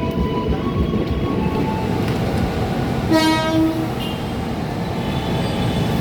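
A train runs by with steady rumbling rail noise, and about three seconds in a train horn sounds one short blast, under a second long.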